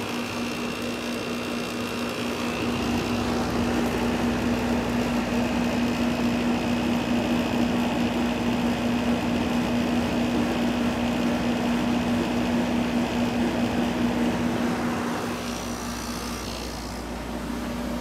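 Mid-1980s Emerson Quiet Kool 7000 BTU window air conditioner running: its rotary compressor and fan give a steady hum with one constant low tone under a wash of air noise, a little quieter near the end.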